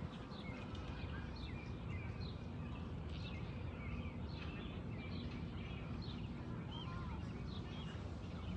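Small birds chirping and twittering in quick short calls throughout, over a steady low rumble of outdoor background noise.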